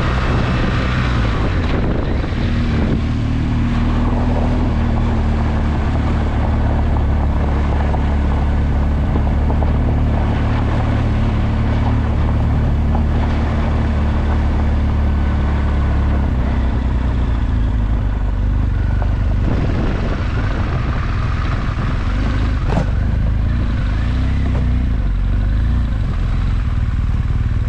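BMW R1200GS Adventure's boxer-twin engine running steadily at low revs as the motorcycle rolls slowly over a gravel track. The engine note eases off about sixteen seconds in as the bike slows.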